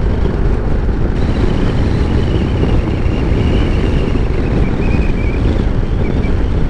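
Steady wind rush on the rider's microphone over the engine and tyre noise of a Honda NC750 parallel-twin motorcycle, speeding up to about 70 km/h and then easing off.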